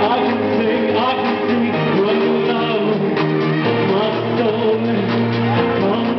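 Pop song played live: held bass notes that change every couple of seconds under a melody line.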